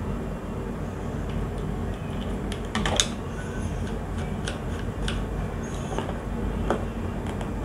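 Scattered small clicks and taps of a screwdriver and wire being worked into the terminals of a magnetic contactor, the sharpest a little under three seconds in, over a steady low hum.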